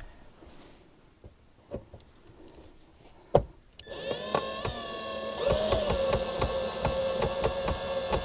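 A few handling knocks, one of them sharp, then about four seconds in a cordless drill-driver starts and runs with a steady whine and a rapid ticking, backing out a trim-panel screw.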